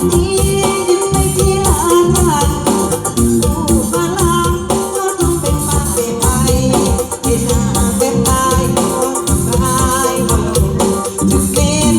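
Live Thai Isan folk music in lae style: a sung melody over a band with a steady, dense beat.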